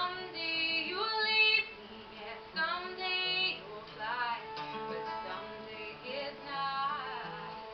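A woman singing a song while accompanying herself on an acoustic guitar; the sung phrases come with short pauses between them while the guitar keeps playing underneath.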